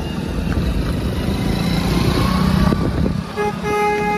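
Small motorcycle engines running at low speed close by, the rumble swelling about halfway through. Near the end a vehicle horn sounds, a short blip and then a longer held toot.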